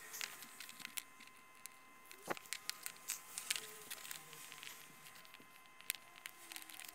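Faint scattered clicks and taps of a plastic 18650 battery holder being handled and turned over in the fingers, with a sharper click about two seconds in.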